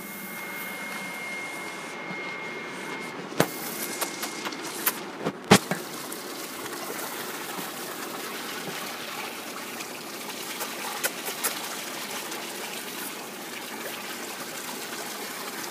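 Water steadily trickling and splashing into an aquaponics fish tank. A handful of sharp knocks come between about three and a half and six seconds in, the loudest about five and a half seconds in.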